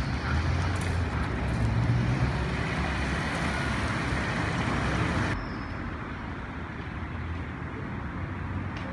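Road traffic: cars driving past at close range, a steady mix of engine and tyre noise. About five seconds in it cuts off abruptly to a quieter, steady background.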